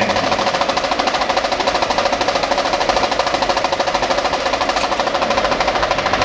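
Marching band snare drums in a sustained rapid roll, an even, fast pulse of many strokes a second.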